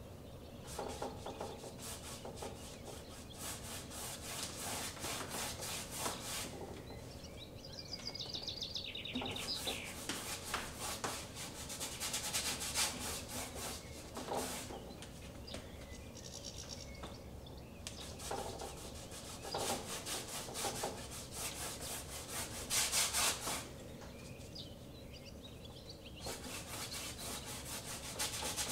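A large paintbrush scrubbing acrylic paint across a stretched canvas in long back-and-forth horizontal strokes, a dry, scratchy rubbing that comes in runs with short pauses between.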